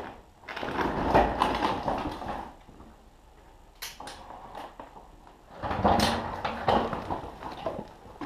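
Hand pallet jack rattling and clanking as a pallet loaded with stacked firewood is jacked up and rolled. There are two spells of clatter, about a second in and again around six seconds, with a few sharp clicks between them.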